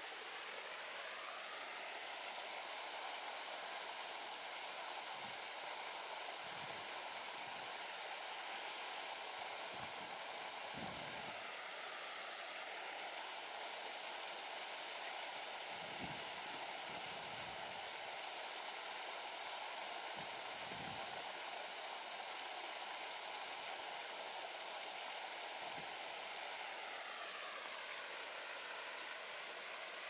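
Steady rush of water from two small waterfalls pouring into a pond.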